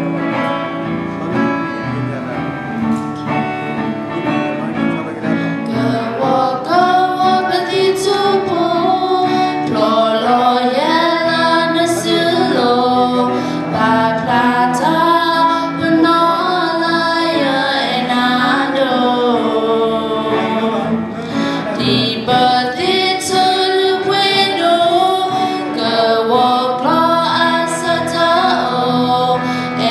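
A song: singing voices over instrumental accompaniment with guitar, the singing growing stronger about six seconds in.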